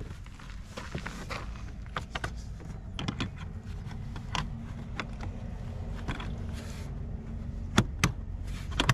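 Plastic interior trim panel being handled and pressed into place at the door opening: scattered light clicks and scrapes, with two sharp clicks close together near the end, over a steady low hum.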